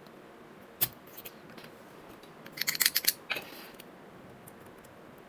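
Soldering iron and metal tool tapping and clicking on a circuit board while a component is desoldered: one light click about a second in, then a quick cluster of small taps around the middle, followed by a brief faint hiss.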